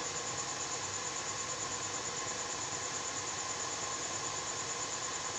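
Steady hiss with faint steady hum-like tones and a high, finely pulsing whine on top, unchanging throughout.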